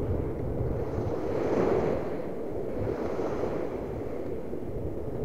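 Small sea waves washing onto the shore, with one swell of surf about a second and a half in, and wind rumbling on the microphone.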